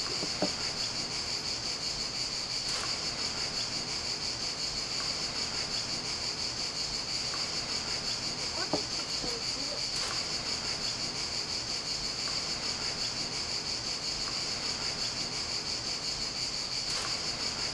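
A steady, high-pitched chorus of singing insects with a fast pulsing shimmer, and a few faint clicks over it.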